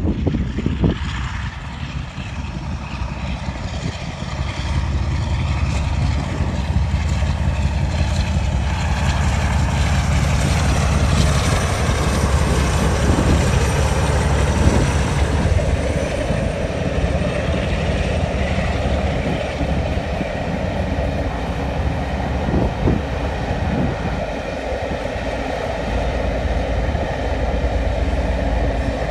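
West Coast Railway Company diesel-hauled charter train passing: a heavy, steady locomotive engine rumble and the rolling of the coaches, with the rear locomotive going by near the end.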